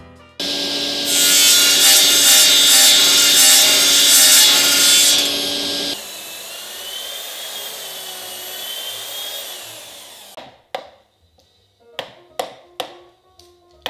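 Corded power saw cutting into a wooden sculpture post, loud and steady for about five and a half seconds before stopping abruptly. After a quieter stretch, a wood chisel makes several sharp knocks as it is driven into a wooden block near the end.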